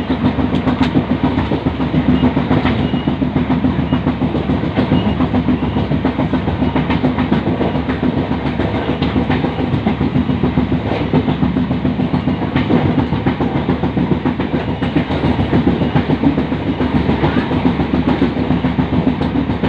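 A moving train running on the tracks: a steady rumble with scattered clicks from the wheels.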